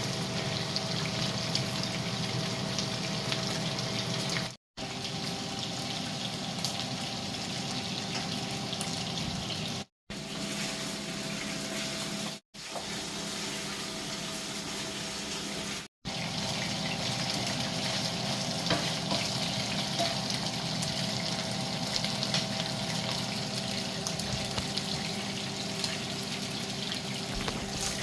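Steady hissing kitchen noise of cooking, either food frying or water running, over a low steady hum; it drops out for an instant four times where short clips are joined.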